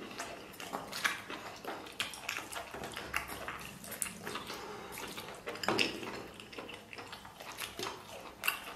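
Wet, close-up chewing and mouth-smacking of a man eating chewy snail meat, with many small irregular clicks and one louder tap a little past halfway.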